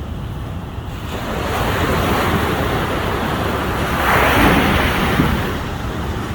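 Ocean waves breaking on a beach: the surf swells about a second in, a wave crashes loudest about four seconds in, then washes back, over a steady low rumble of wind on the microphone.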